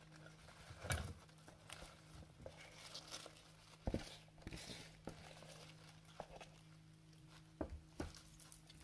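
Loose leaf lettuce rustling and crinkling as it is tipped out of a colander into a glass dish and handled, with a few soft knocks along the way.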